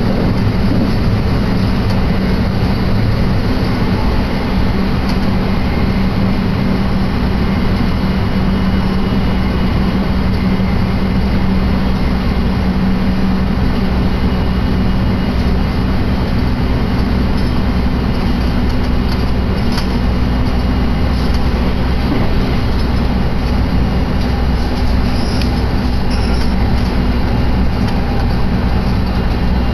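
Commuter train cabin noise while the train is running: steady rumble of wheels and running gear with a constant low hum.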